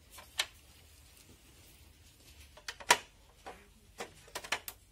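A series of short, sharp clicks and ticks over quiet room tone: one about half a second in, the loudest around three seconds in, and a quick cluster near the end.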